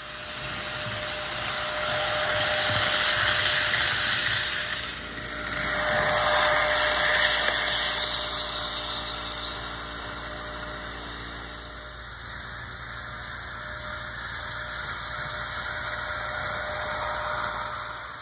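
HO scale model train running on the layout, with motor whine and wheels rattling on the rails. It gets louder twice as the train passes close, then runs on more quietly.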